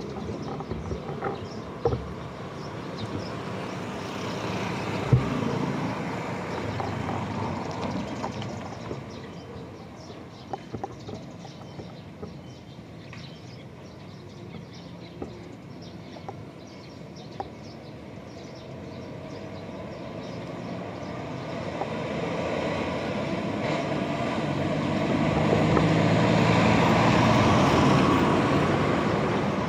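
Road traffic passing along a street, a steady rumble of vehicles with a few small knocks. Near the end a vehicle's engine grows louder as it approaches, then begins to fade.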